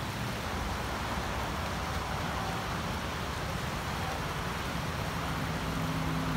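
Debris-laden flash-flood water rushing steadily down a creek channel, the churning flow at the front of a debris flow.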